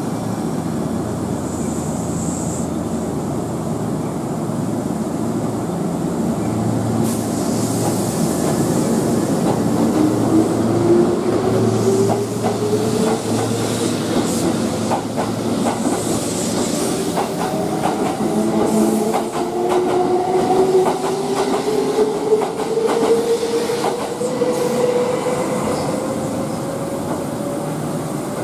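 Kintetsu 12410-series limited express electric train pulling out of a station. Its traction motors give a whine that rises steadily in pitch as it gathers speed. Its wheels clatter over the rail joints from about seven seconds in.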